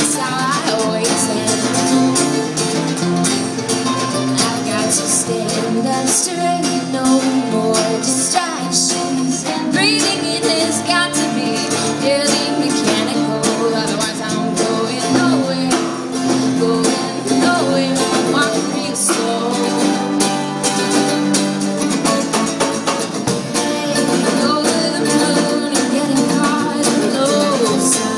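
Live acoustic folk band playing a song: a woman singing over strummed acoustic guitar, mandolin, a second guitar and a drum kit.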